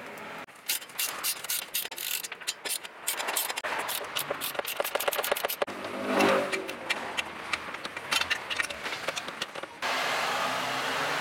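Hand tools clicking and clanking on the exhaust bolts under a Subaru WRX STi, a run of sharp irregular clicks that comes fast and dense in the middle. At about ten seconds it cuts to a steady rushing noise with a low hum.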